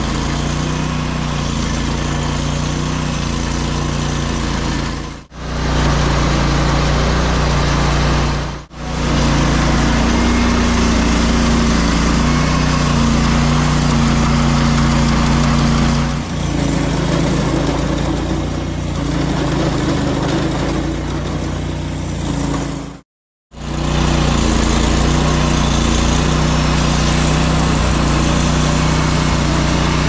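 Engine of an EZ Boardwalk 40 portable bandsaw mill running steadily under load as its band blade saws through a large white oak log. The sound drops out briefly three times and its note shifts slightly about halfway through.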